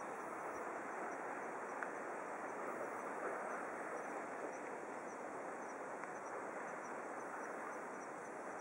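Waterfall rushing in a steady, even wash of falling water. Faint high chirps, like an insect's, repeat at an even pace above it.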